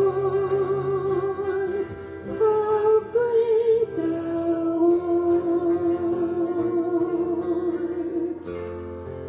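A man sings a slow worship song in long held notes with vibrato, accompanied by acoustic and electric guitar. The singing stops about eight seconds in and the guitars play on.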